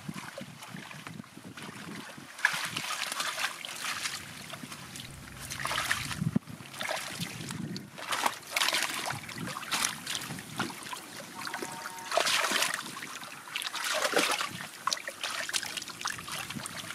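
Bare hands digging and scooping through wet mud and shallow water, making irregular squelches and splashes.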